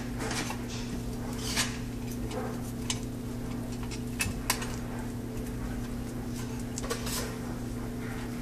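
Black electrical tape being wrapped around the wire connections on a recessed light's metal junction box: scattered rustles and sharp clicks of tape and metal being handled, a handful of them louder, over a steady low hum.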